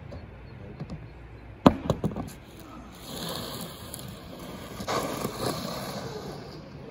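A few sharp knocks on the roof deck, the loudest about a second and a half in, then a rough scraping hiss for several seconds as a sheet of OSB is lifted and tilted with its edge rubbing over the decking.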